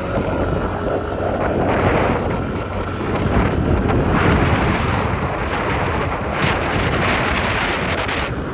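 Wind buffeting and rushing over the phone's microphone during a ride on an open two-wheeler, a loud noise that swells and eases.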